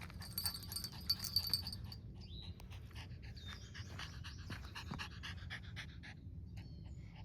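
A chihuahua panting quickly in short, even breaths, with her collar tags jingling during the first couple of seconds.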